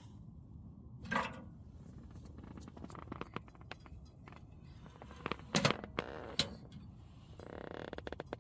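Camp gear being handled: scattered clicks and a few louder knocks, then a short burst of quick crackly ticks near the end.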